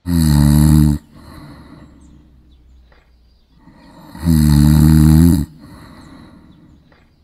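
A person snoring: two loud, rasping snores about a second long each, some four seconds apart, with quieter breathing between them.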